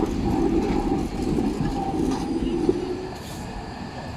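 Articulated tram rolling close past on curving street track, a dense steady rumble of wheels on rails with a faint steady whine above it. The sound drops away about three seconds in.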